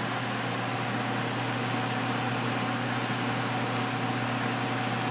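A steady mechanical hum with a low drone and a fainter higher tone, over an even hiss; no gunshots.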